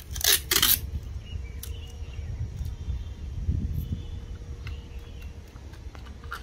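Adhesive tape ripped off a roll in two quick pulls near the start, then small clicks and taps as a firework rocket is pressed and taped onto a plastic toy tractor, over a low rumble.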